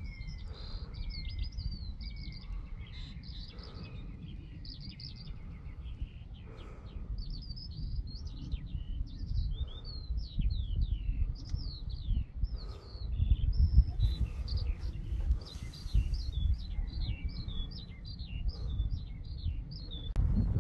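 Birds singing, a continuous stream of short high chirps and trills, over a low, uneven rumble that swells about 14 seconds in.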